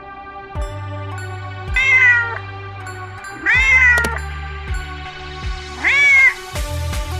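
Calico cat meowing three times, about two seconds apart, each meow rising and then falling in pitch, over background music with a low, regular beat.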